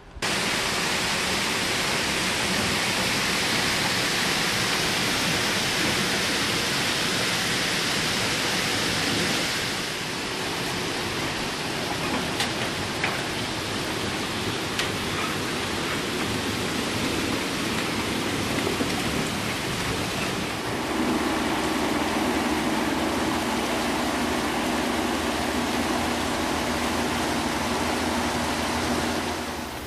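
Water rushing loudly and steadily, like a barn flush valve releasing its flush water. The rush changes in tone about ten seconds in, and a low steady hum joins it about twenty seconds in.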